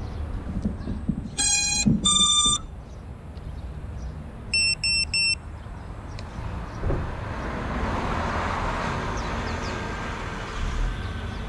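Electronic beeps from an FPV quadcopter's electronics sitting on a car roof: two longer tones of different pitch about a second and a half in, then three short, higher beeps around five seconds in. A low rumble runs underneath, and a broad rushing hiss swells in the second half.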